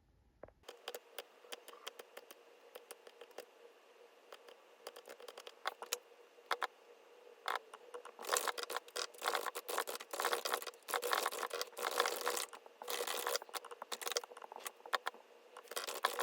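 Irregular close-up scraping, scratching and light tapping of small objects being handled, sparse at first and busier from about eight seconds in.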